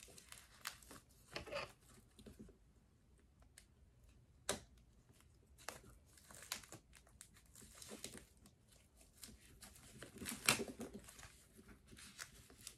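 Thin protective wrapping on a new handbag crinkling and tearing as it is cut with scissors and pulled off, in scattered short rustles and clicks; the loudest burst comes about ten seconds in.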